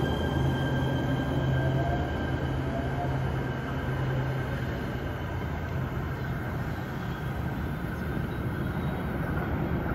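Kinkisharyo P3010 light rail train pulling away from the station: a steady low electric hum and a high steady whine over wheel rumble on the rails, slowly fading as it recedes, with the hum dropping away about halfway through.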